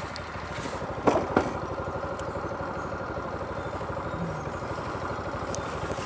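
Motorcycle engine idling steadily with an even, rapid firing pulse. Two sharp clicks sound about a second in.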